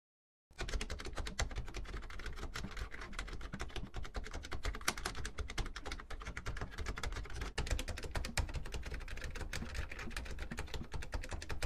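Typing sound effect: rapid computer-keyboard key clicks, many a second, starting about half a second in, with a brief break a little past halfway.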